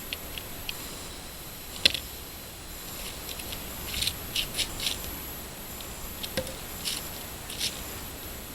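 Nail puller working nails out of pallet boards: a sharp knock about two seconds in, then several short squeaks and scrapes of nails being pried from the wood, with light clicks in between.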